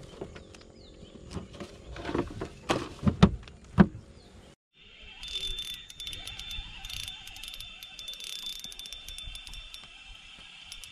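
A few knocks and clicks of gear being handled in a small boat, the loudest a sharp knock about four seconds in. After a brief cut, a spinning reel is wound in: a steady high whir with fine rapid clicking.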